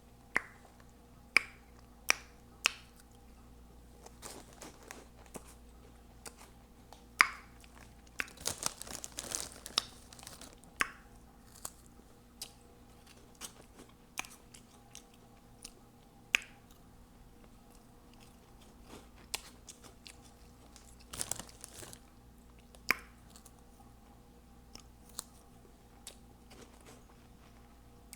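A person chewing Hot Cheetos Puffs close to the microphone: crisp bites and crunching, with sharp mouth clicks and smacks scattered throughout. There are two longer runs of crunching, about a third of the way in and again near two-thirds.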